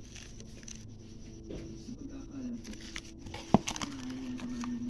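A cardboard pasta box being handled and turned over in the hand, with one sharp tap about three and a half seconds in. A faint wavering tone runs underneath.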